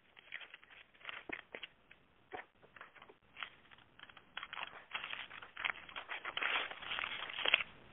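Paper rattling, heard over a phone line: irregular crinkles and rustles that grow busier and louder in the last few seconds.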